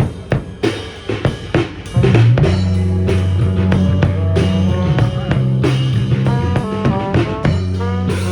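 Instrumental band music: a drum kit plays alone, then a bass line and a melodic lead come in about two seconds in over the steady beat.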